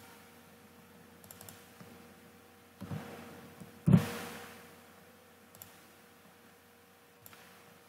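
Computer mouse clicks at a desk, with two louder knocks about three and four seconds in, the second the loudest with a short fading tail, over a faint steady hum.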